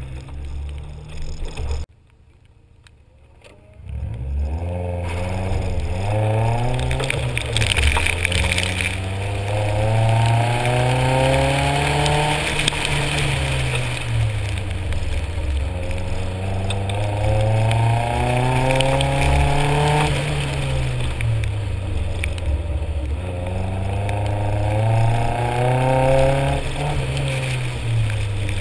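Nissan 240SX's KA24 four-cylinder engine pulling hard and backing off through an autocross run in the wet, the revs climbing and falling in long sweeps every few seconds. A brief drop in level comes near the start, after which the run begins.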